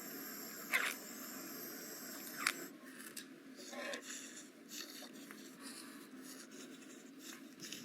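Small-scale handcraft work: a faint steady high whine with a couple of sharp clicks stops about two and a half seconds in. Light, irregular scraping and tapping of small plastic parts follows.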